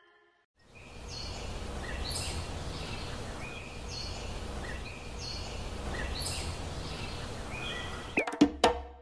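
Outdoor background noise with a steady low rumble, and a small bird chirping again and again, about once a second. A few sharp clicks come near the end.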